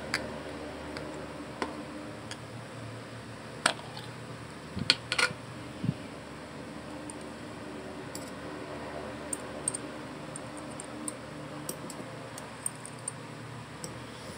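A metal screw lid is twisted off a small glass jar with a few sharp clicks and knocks, then a metal spoon scoops dried fruit pieces, giving light high clinks against the glass jar and a small steel bowl. A steady low hum runs underneath.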